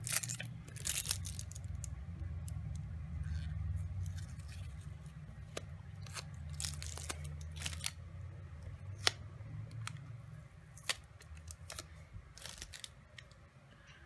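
Washi tape rolls being handled by hand: scattered small clicks and short rustles or tearing sounds as the tape is picked up, unwrapped or peeled, over a steady low hum.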